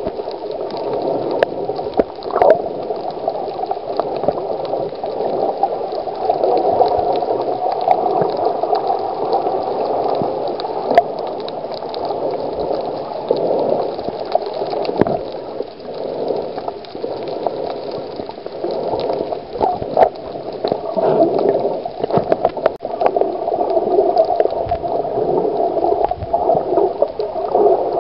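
Water heard from below the surface through a submerged camera: a continuous muffled rushing, with scattered sharp clicks.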